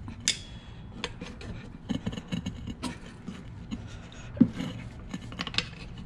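Tire bead being worked by hand over a metal minibike rim with a tire lever: rubber rubbing and scraping, with scattered clicks of metal against the rim. One sharper knock comes about four and a half seconds in.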